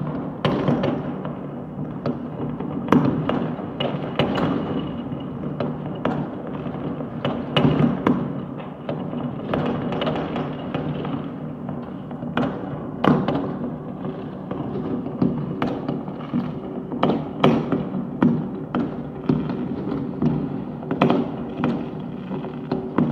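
Fireworks and firecrackers going off all over a city, a dense, irregular barrage of bangs and thuds over a continuous background rumble, with several louder booms standing out.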